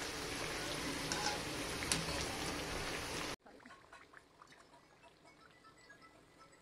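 Maida pastries (chandrakala) deep-frying in oil in a kadhai over a very low flame: a steady sizzling hiss. The hiss cuts off abruptly about halfway through, leaving near silence with a few faint crackles.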